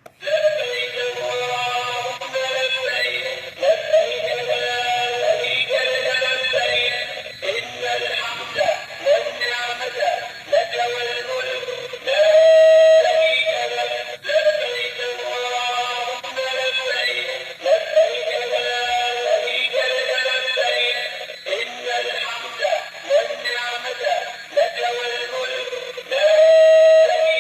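Battery-operated toy camel, just switched on, playing an electronic song with a synthesized singing voice through a small speaker with almost no bass.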